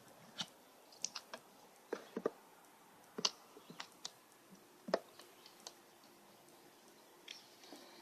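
Scattered sharp clicks and light knocks at an uneven pace, about fifteen in the first six seconds and two more near the end.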